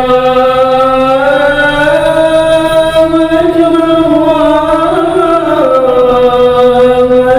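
A man chanting one long, unbroken melismatic note in the Arabic devotional style of a mosque shalawat. The pitch climbs in small steps and ornaments, then drops back to where it began about five and a half seconds in.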